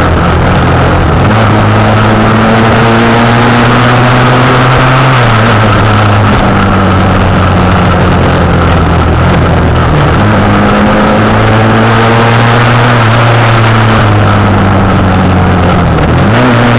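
Motorcycle engine running on the move, its pitch stepping up and down with throttle and gear changes: up about a second in, down around five seconds, up again near ten seconds and once more near the end. A steady rushing noise of wind on the microphone runs under it.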